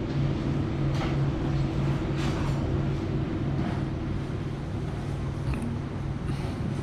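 A steady engine drone: a low hum throbbing at an even pace over a constant rushing noise.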